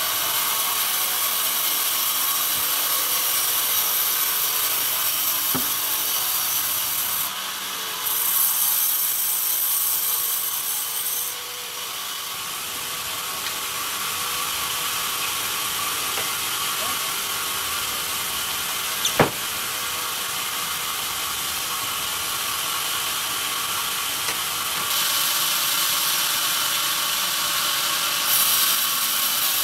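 Vertical band saw running and cutting through a pine log, a steady hiss of the blade in the wood. Its level and tone change abruptly a few times, and one sharp knock stands out about two-thirds of the way through.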